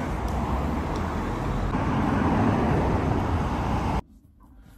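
Steady road-vehicle noise, a low even rumble with no clear engine note, cutting off suddenly about four seconds in.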